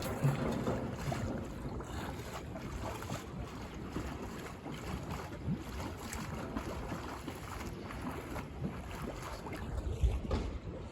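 Wind on the microphone over water lapping around a newly launched houseboat at the shoreline, with small knocks throughout and a louder thump about ten seconds in.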